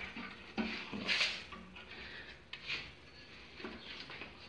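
Painted steel parts of a portable wood stove being handled and fitted together: a few short scrapes and light knocks of metal on metal, the loudest scrape about a second in.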